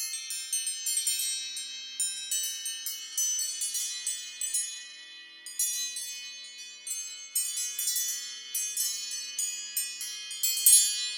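iPhone ringtone of high, wind-chime-like bell tones, struck in quick irregular runs with each note ringing on.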